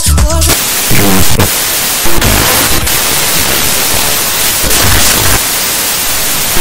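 Malahit-DSP software-defined radio receiving wide FM while being tuned across the FM broadcast band: loud static hiss between stations, with short snatches of station music breaking through as the frequency steps.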